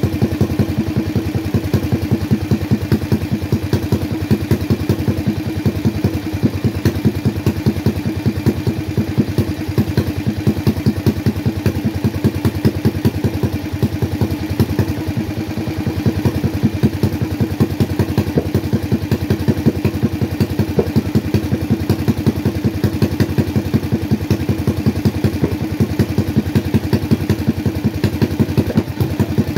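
Yamada 18 hp single-cylinder engine, built up with a 100 mm piston and a 42 mm carburettor, running at a steady speed with fast, even firing pulses.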